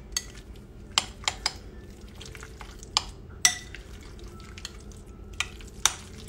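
A spoon stirring chopped hard-boiled eggs with mayonnaise and mustard in a glass bowl: soft stirring of the mix, with the spoon clinking against the bowl's side about seven times at irregular moments.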